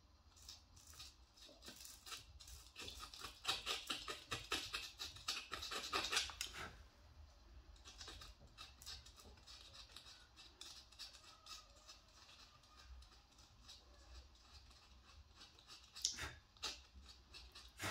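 Wire nib of a pyrography pen scratching across the skin of a dried gourd in quick short strokes, busiest and loudest in the first half, then lighter, with one sharper click near the end.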